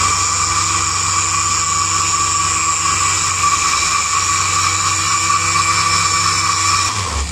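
Electric blender running steadily at speed, its blades beating raw eggs in the glass jug into a froth. The motor is switched off near the end and winds down.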